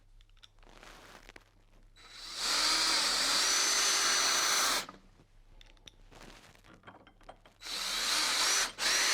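Power drill-driver driving screws to fit a gate lock's receiver. The motor runs twice for a couple of seconds each time, its pitch rising as it spins up. The second run breaks off briefly near the end.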